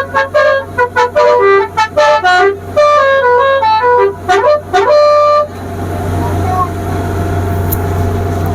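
A 'telolet basuri' musical multi-tone horn playing a quick tune of short notes, with a couple of swooping glides down and up near the end. It stops about five and a half seconds in, leaving a steady low drone with rushing noise.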